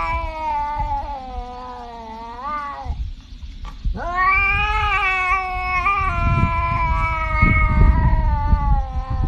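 Tabby cat yowling in two long, drawn-out calls. The first bends up and breaks off about three seconds in. The second starts about a second later and is held for the rest.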